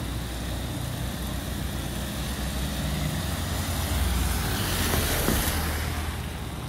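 A car drives past close by on the wet road, its tyre hiss swelling about four seconds in and then fading, over a steady rush of floodwater.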